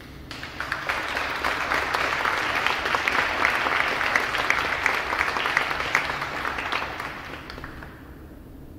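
Audience applauding: many hands clapping, which swell up within the first second and die away near the end.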